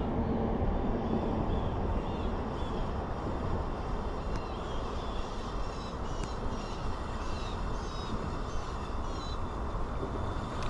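A bird singing a series of short chirps over a steady low rumbling noise.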